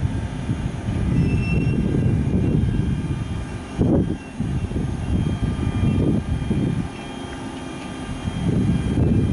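Bombardier Traxx E186 electric locomotive moving off slowly at the head of a tank-wagon train: a steady machine hum, like its cooling blowers, with faint high whining tones over it. An uneven low rumble that rises and falls, like wind on the microphone, runs underneath.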